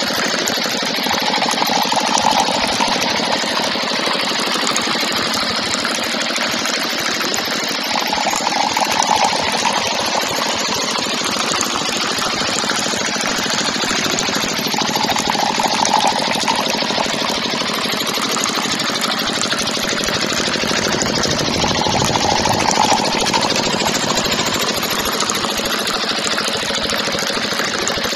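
Small diesel-style engine of a miniature water pump running with a fast, steady clatter, swelling slightly about every seven seconds.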